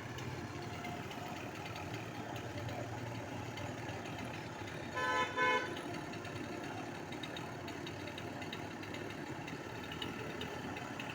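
A vehicle horn sounds two short beeps in quick succession about five seconds in, over a steady engine hum.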